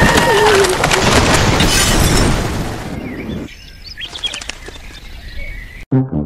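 Heavy rain pouring, with a few sharp cracks, dying away after about two and a half seconds into quieter outdoor ambience with birds chirping.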